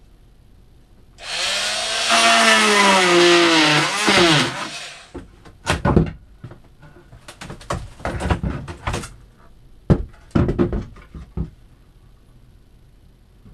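Wooden icebox face frame being pried loose from its fiberglass box: a loud, drawn-out screech with a wavering pitch that rises and then falls, followed by a series of sharp knocks and clatters as the panel comes free.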